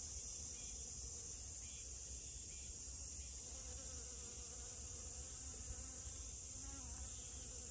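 Steady high-pitched insect chorus, with the faint, low buzz of a honeybee working rose moss flowers near the end.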